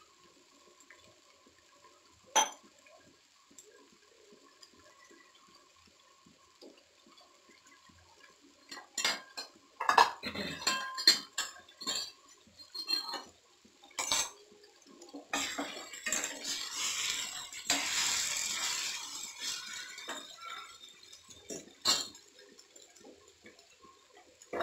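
Steel kitchen utensils clinking and knocking: a spoon against a steel bowl and containers being handled. There is one sharp clink a couple of seconds in, then a flurry of knocks from about nine seconds in, and a few seconds of continuous noise past the middle.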